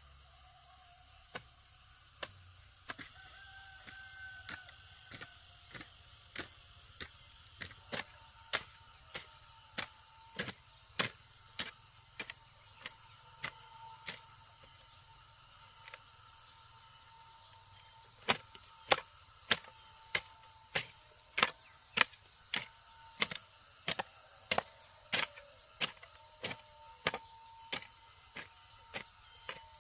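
Steady hand-tool strikes on wood, a little under two a second. They are fainter at first, pause for a few seconds in the middle, then come back louder, the work of building a chicken coop.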